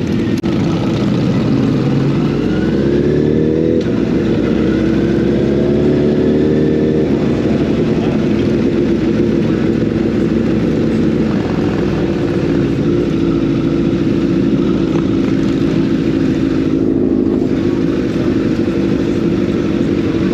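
Honda CBR1000RR sport bike's inline-four engine under way. It pulls up through the revs, changes gear about four seconds in, and pulls up again. It then holds steady at a cruising pace.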